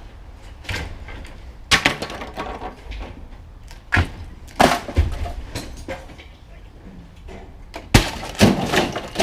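Scrap crashing and breaking: about six loud, sharp impacts spread over several seconds, each followed by a brief rattle of pieces.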